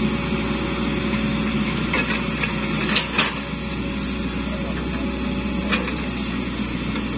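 Hitachi hydraulic excavator running steadily at working speed as it swings and dumps a bucketful of soil, with a few sharp knocks about 2, 3 and 6 seconds in.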